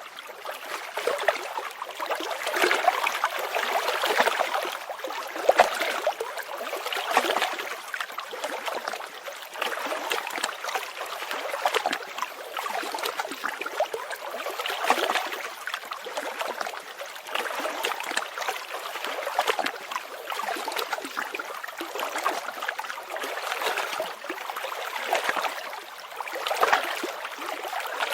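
Running water of a small stream, trickling and gurgling steadily with gentle swells.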